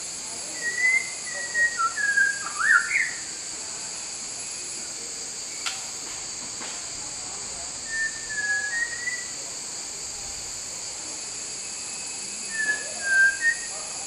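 White-rumped shama singing short phrases of clear whistled notes that glide up and down, in three bursts: one about a second in, one around eight seconds, and one near the end. A steady high hiss runs underneath.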